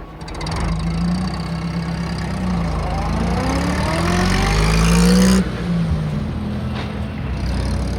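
Car engine revving, its pitch climbing for a couple of seconds before cutting off abruptly about five seconds in, then running on more steadily.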